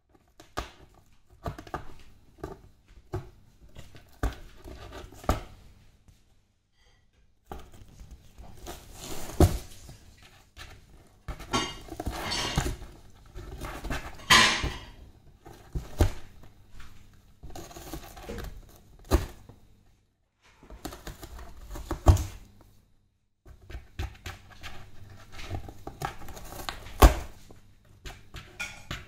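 A cat clawing, batting and biting at a cardboard box, with scraping, rustling and tearing of the cardboard and several sharp thumps against the box.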